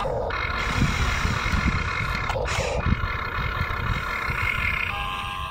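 Electric drive motors and gearboxes of a radio-controlled toy excavator whining steadily as it swings and raises its arm, cutting out briefly twice, over a low, uneven rumble.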